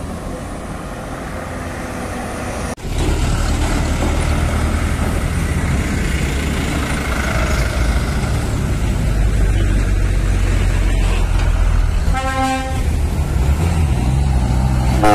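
Diesel trucks running past close by with a loud, steady low engine rumble. A short horn toot sounds about twelve seconds in.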